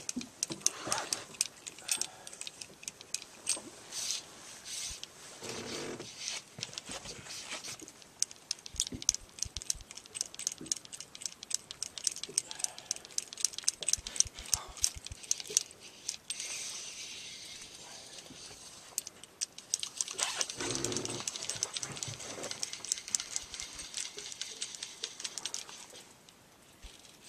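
Fishing reel clicking rapidly as line is reeled in, with rustling from hands and clothing.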